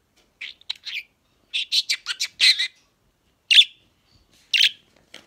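Budgerigar chattering: short, high, scratchy chirps and warbles, a quick run of them in the first half, then two louder single calls about a second apart.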